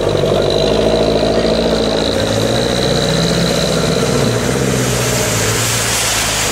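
Off-road SUV engines running under load through a muddy stream, the pitch rising and falling with the throttle. A Chevrolet Niva ploughs through the water and passes close by near the end, its wheels throwing up a rush of splashing water.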